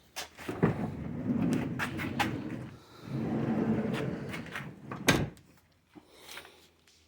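A van's sliding door rolling along its track in two pushes, with rumbling and clicking, then a sharp thud about five seconds in as it hits its stop.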